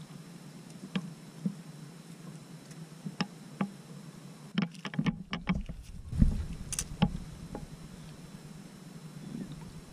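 Knocks and taps on a plastic sit-on-top fishing kayak's hull and deck gear, scattered through the middle, with one heavier low thump a little past six seconds in, over a steady low rumble of the boat on the water.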